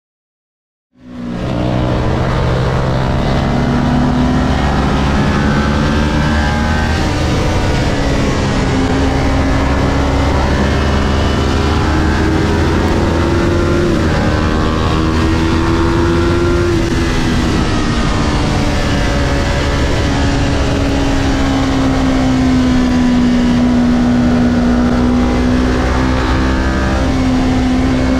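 Kawasaki Ninja 400's parallel-twin engine held at high revs at racing speed, starting about a second in, its pitch rising and falling gently as the throttle is worked through the corners, with wind rushing over the onboard camera.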